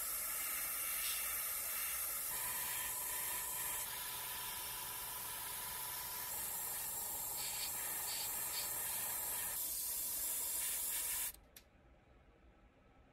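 Airbrush spraying paint onto a swimbait lure: a steady hiss of air and paint with a thin steady whistle joining about two seconds in. The spray cuts off suddenly near the end.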